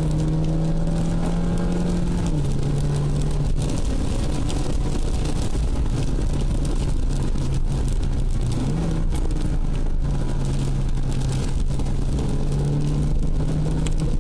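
Ford Puma heard from inside the cabin while driving on a rain-soaked road: a steady engine hum under continuous tyre and rain noise. The engine note drops a little about two seconds in and climbs again near the end.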